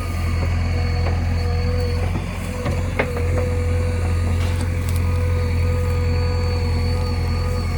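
Backhoe loader's diesel engine running steadily, with a steady whine over the low engine hum and one sharp click about three seconds in.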